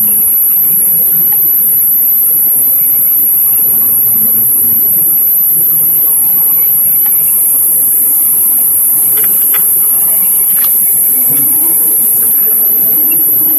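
Loud, steady high-pitched hiss in the sound feed, over faint murmur of voices in the hall: an audio fault that the operators take to be coming through a live microphone. It grows thicker for a few seconds in the middle.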